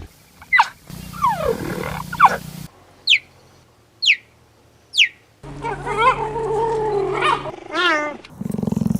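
A string of animal calls: several falling cries, then three short high chirps that drop in pitch about a second apart, then a long wavering call that ends in a quick trill near the end.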